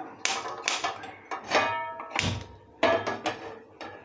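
Metal cookware being handled on a stove: about seven sharp clanks and knocks, several ringing briefly after the strike.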